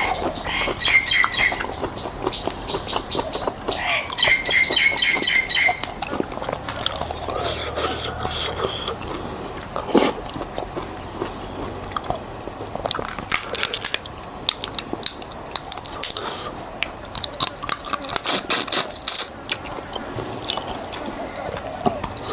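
Close-up eating of spicy pickled crab and shrimp: chewing with sharp crunches and cracks of shell, in thick clusters about thirteen and eighteen seconds in.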